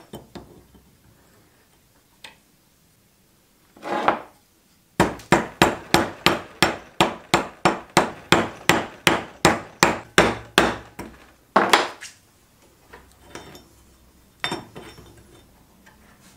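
Hammer blows knocking the old wooden handle out of the eye of a rusty axe head held in a bench vise: a steady run of about twenty sharp strikes, roughly three a second, starting about five seconds in, then two more strikes a moment later.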